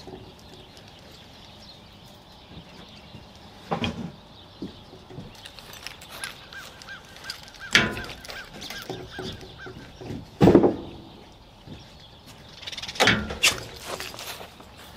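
Tools and gear being moved around in the back of a box truck, with scattered knocks and clunks on the cargo floor and shelving, the loudest about ten seconds in, then a couple of heavy steps near the end as he climbs down off the rear bumper. A quick series of high chirps sounds in the middle.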